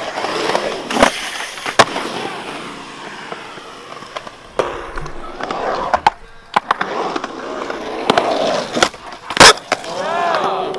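Skateboard wheels rolling on the concrete of a skatepark bowl, with several sharp clacks of boards hitting the concrete, the loudest about nine and a half seconds in.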